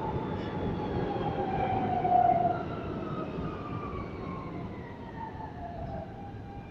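R160B subway train with Siemens propulsion braking into the station: a rumble of wheels on rail under a whine of several tones that slide steadily downward as it slows. The whine is loudest about two seconds in, then fades.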